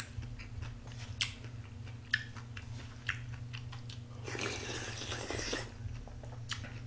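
Close-up sounds of a person eating spicy cold raw-fish soup (mulhoe) with a spoon: soft chewing and scattered small clicks and crunches, with a louder, noisier stretch of about a second near the middle.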